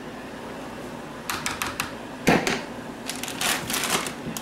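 Kitchen handling noises as cheese is put onto a lasagna: a few light clicks, one sharp knock a little over two seconds in, then a run of short rustles.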